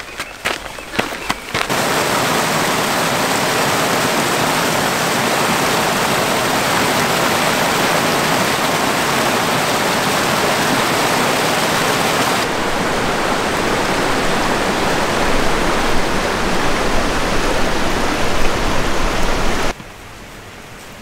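A few footsteps on a dirt trail, then a small mountain creek cascading over rocks: a loud, steady rush of water. It cuts off sharply to a faint hiss near the end.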